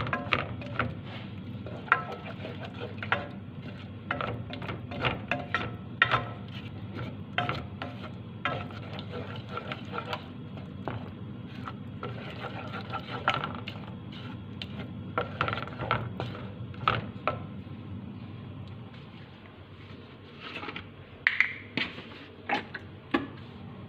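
Kitchen utensils and dishes clinking and tapping in irregular knocks during food preparation, over a steady low hum.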